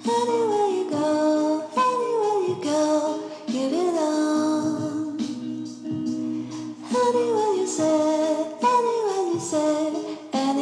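Background music with a sung or sung-like melody line over a steady low tone, starting suddenly.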